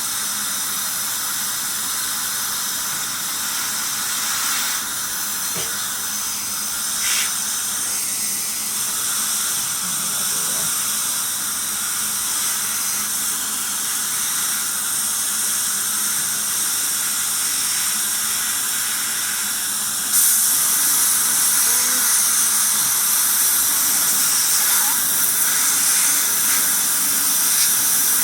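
Dental air polisher blasting its spray of air, water and powder onto the teeth with a steady hiss, along with the dental suction drawing it away. About two-thirds of the way through the hiss jumps louder and brighter.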